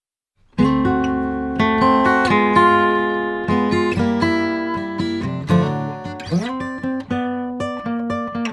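Acoustic guitar music, strummed and picked chords with sliding note changes, starting about half a second in.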